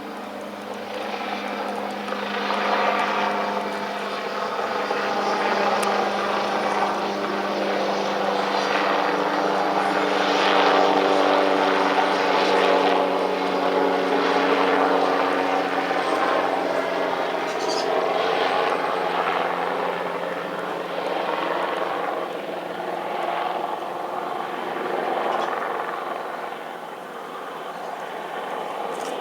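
Helicopter in flight, its rotor and engine sound swelling to its loudest about halfway through and then easing off, over a steady low hum.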